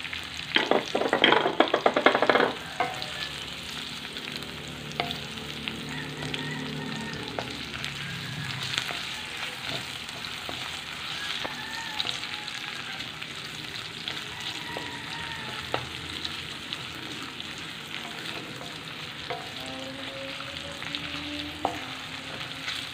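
Garlic, onion and ginger sizzling in hot oil in a metal wok, stirred and scraped with a wooden spatula. A loud burst of stirring and sizzling in the first couple of seconds, then steady frying with occasional light taps of the spatula against the wok.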